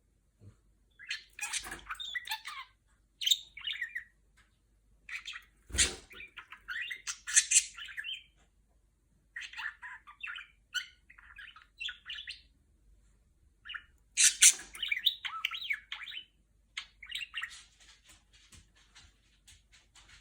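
Budgerigar chattering in bouts of quick chirps and warbles, with short pauses between bouts and a few sharp clicks among them.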